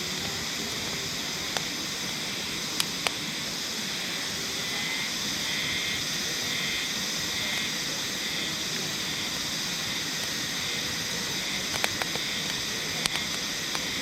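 Steady rushing of a clear mountain river, with a few sharp crackles from wood burning in a small camping wood stove.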